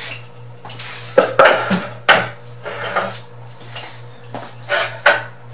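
Wooden bar stools being turned and set down on a hard floor: a few clattering wooden knocks and scrapes, the loudest about a second in and again near the end, over a steady low hum.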